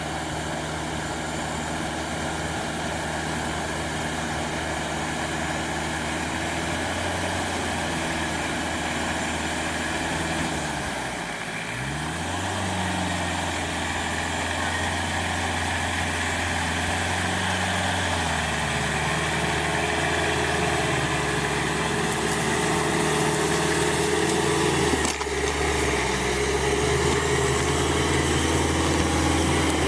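Engine of an off-road vehicle on huge low-pressure tyres, running steadily while it wades through water. Its pitch dips and then rises again about eleven seconds in, with a few more shifts in engine speed later.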